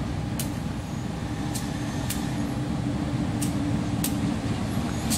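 Diesel-electric CC201 locomotive idling at a standstill: a steady low rumble with an even hum, and short sharp ticks about every half second over it.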